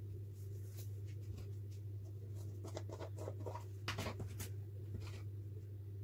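Crumpled wiping towel rustling and scratching as a hand handles it and sets it down. The rustles cluster about three to four seconds in, over a steady low hum.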